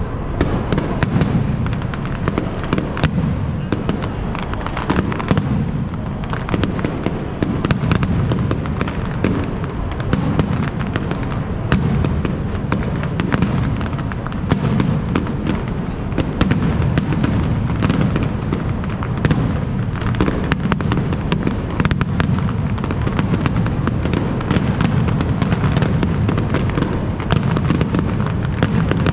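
Aerial fireworks going off in a rapid, continuous barrage: many overlapping sharp bangs and crackles over a constant heavy low rumble.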